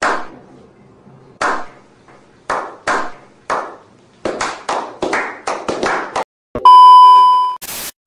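A slow clap by a small group: single claps a second or so apart that speed up to several a second. It breaks off for a loud steady test-tone beep lasting about a second, then a burst of TV static near the end.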